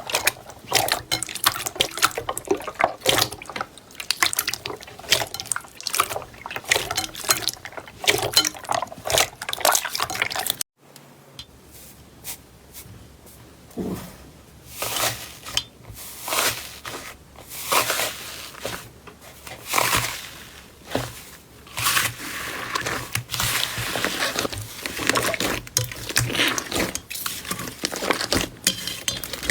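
Slime being squeezed and pressed by hand, giving rapid wet squelching and popping clicks. About eleven seconds in there is a brief cut to silence, after which the squishes come slower and more spaced out.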